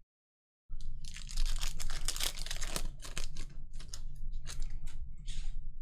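A trading-card pack wrapper being ripped open and crinkled, starting just under a second in: a dense, crackling rustle with many sharp snaps.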